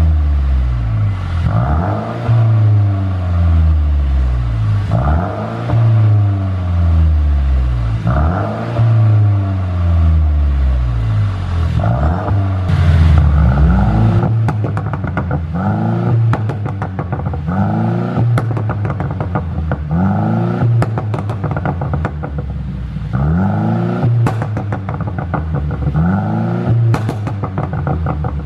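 Mercedes-Benz W205 C200's turbocharged four-cylinder engine is revved again and again, each rev rising and then falling back. From about halfway in, every drop in revs brings rapid crackles and pops from the exhaust: overrun pops from a pops-and-bangs engine tune.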